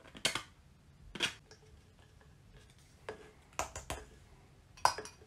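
3D-printed PLA plastic model parts being handled and fitted together on a tabletop: a few scattered light clicks and taps, with a small cluster past the middle and a sharper click near the end.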